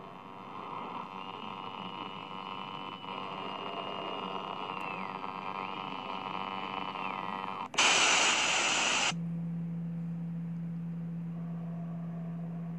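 Droning background sound with a thin high tone that slides down and back up twice. About eight seconds in it is cut by a loud burst of static lasting about a second, then gives way to a steady low hum.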